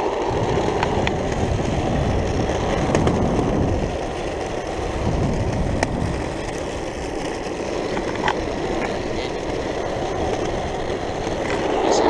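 Waveboard wheels rolling over asphalt: a steady rumble, with a few light clicks.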